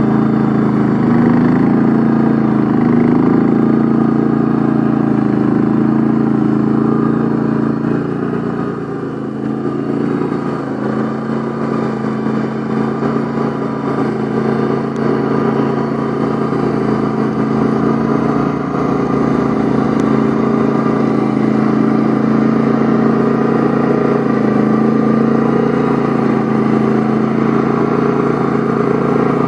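Pasquali two-wheeled tractor's engine running steadily under load while its Berta flail mower cuts long, damp grass. The level dips briefly about eight seconds in.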